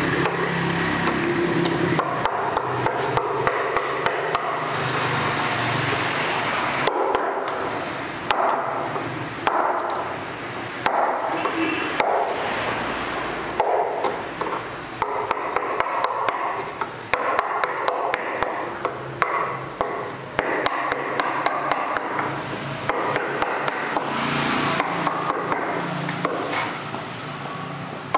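Hand wood-carving gouge cutting into a wooden panel: irregular runs of sharp taps and knocks on the tool, with the scrape of the blade through the wood.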